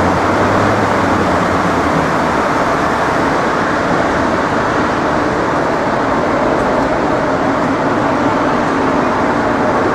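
Steady, loud traffic noise of a busy city street, an unbroken wash of passing vehicles with no single event standing out.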